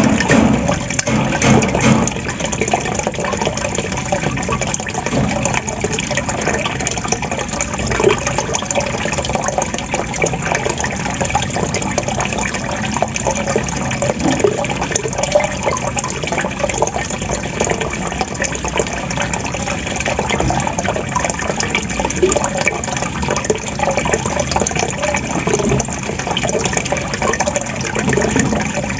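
Running water gurgling and trickling steadily.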